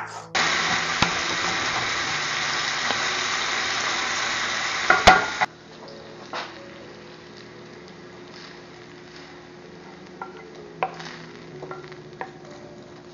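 Browned Italian sausage sizzling loudly in a hot skillet, with a clatter of the pan about five seconds in, after which the sizzle stops suddenly. Then quieter scrapes and clicks as a wooden spatula pushes the sausage from the skillet into a lined slow cooker.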